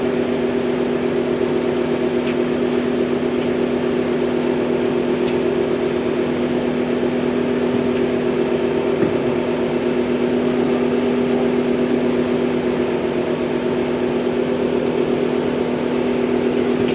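An engine running steadily at idle, a constant droning hum with no change in pitch.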